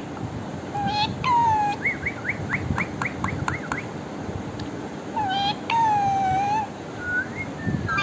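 Pet ringneck parrot vocalizing: drawn-out whistled calls, with a quick run of short rising chirps, about five a second, in the middle.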